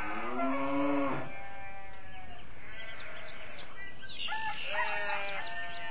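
Farm-animal sound effects: drawn-out calls of sheep bleating and a rooster crowing, one in the first second or so and more near the end.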